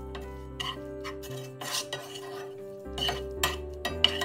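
Slotted wooden spatula stirring and scraping crumbled paneer around a coated frying pan, with a handful of sharp scrapes and knocks against the pan.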